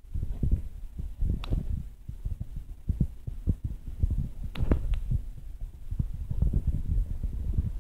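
Handling noise from a handheld camera's microphone: low rumbling with irregular soft thumps as the camera is moved, and a few sharper clicks.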